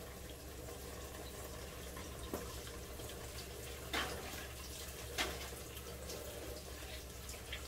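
Kitchen faucet running into the sink, a steady soft hiss, with three light knocks about two, four and five seconds in.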